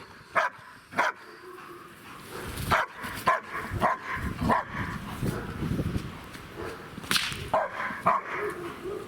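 German Shepherd barking repeatedly: a series of short, sharp barks at irregular intervals.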